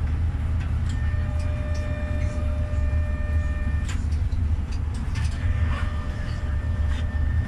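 GEC-Alsthom TFS tram running along the track, heard from the cab: a steady low rumble. A whine of several steady tones comes in about a second in and stops about four seconds in, with a few scattered clicks.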